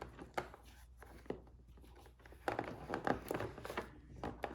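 Hands working a toy doll free of its cardboard-and-plastic packaging: soft rustling and small plastic clicks, sparse at first and busier from about halfway through.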